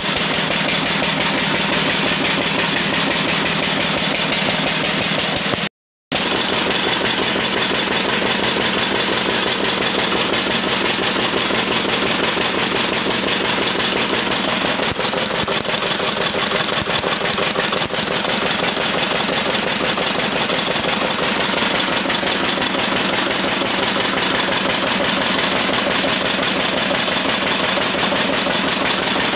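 A 12 HP Lister-type single-cylinder diesel engine running steadily with a fast, even firing beat, belt-driving a 2.5 kVA generator. The sound drops out for a moment about six seconds in.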